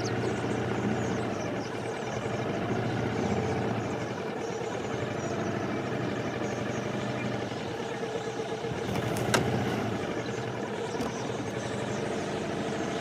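Small boat motor running steadily at low speed, with one sharp knock about nine seconds in.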